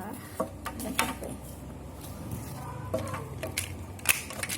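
Handling noise: a scattering of light clicks and taps, about half a dozen, as a plastic transforming toy robot and its packaging are handled.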